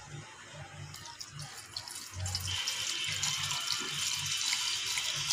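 Gasoline pouring from a plastic container through a funnel into a Kawasaki Fury motorcycle's empty fuel tank, the steady splashing getting louder about two seconds in.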